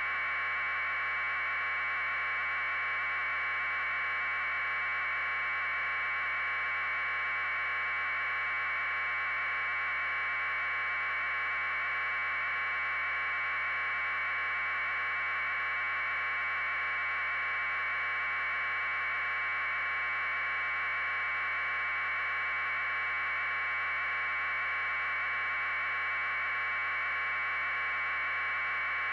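Steady, unchanging electronic hiss, like static on an audio feed, with no other sound.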